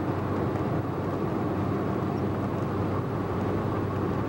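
Steady road and engine noise of a vehicle travelling at highway speed, with a constant low hum underneath.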